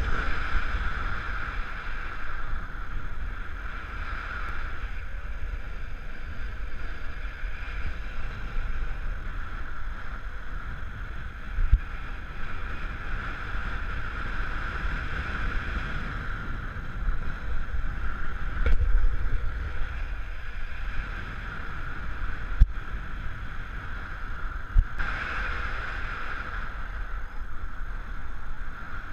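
Airflow rushing over the camera during a paraglider flight: a steady low wind rumble with a higher whistle that swells and fades, and a few brief knocks.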